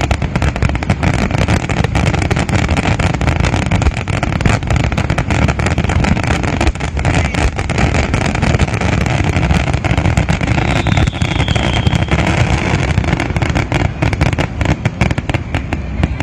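Aerial fireworks going off in a rapid, continuous barrage of bangs and crackles over a heavy low rumble, which eases off near the end.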